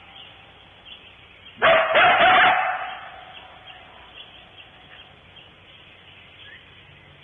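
Coyotes barking and yipping in one loud, harsh burst lasting about a second, starting about a second and a half in. Faint scattered calls sound in the background.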